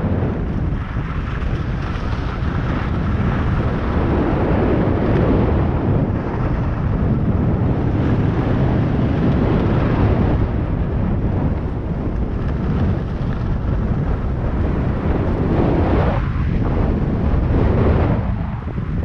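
Wind buffeting the camera microphone during a ski descent, with the hiss of skis sliding over packed snow beneath it. The noise is loud and steady, with only small swells.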